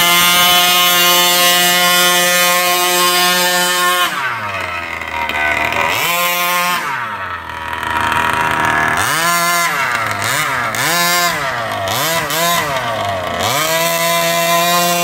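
Large-scale RC truck's two-stroke petrol engine running very loud: held at high revs for about four seconds, dropping to idle, one short rev, then a string of quick throttle blips before it revs high and steady again near the end.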